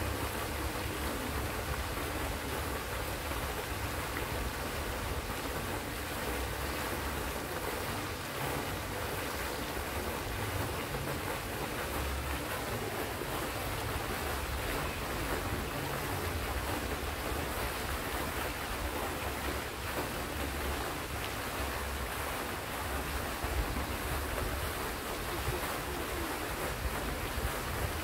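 Pond fountain jets splashing steadily down into the water, a continuous hiss and patter of falling water, with an uneven low rumble underneath.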